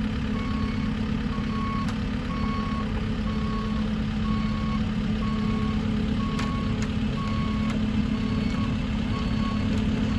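Caterpillar 308E2 excavator's diesel engine running steadily, with its motion alarm beeping a little more than once a second as the machine moves. A few sharp clicks are heard.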